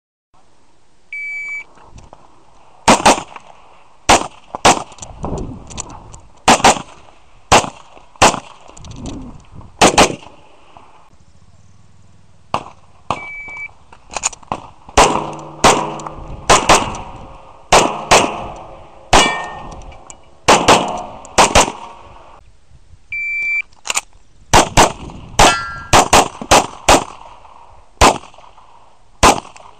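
Grand Power X-Calibur pistol firing strings of quick shots, with short pauses between strings. Three times a short metallic ring of about a second sounds, typical of steel targets being hit.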